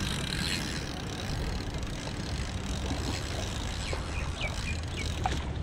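Steady wind rumble on the microphone over sea water at a rocky shoreline, with a few short high chirps and clicks about four to five seconds in.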